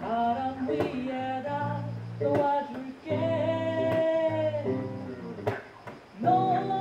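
A man singing a melody while accompanying himself on an electric bass guitar, low held bass notes under the voice, with one long sung note held for over a second about three seconds in.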